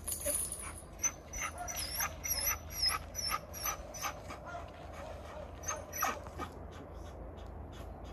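A wolfdog panting, quick soft breaths about three a second that die away after about six seconds, with a few high chirps over them around two to three seconds in.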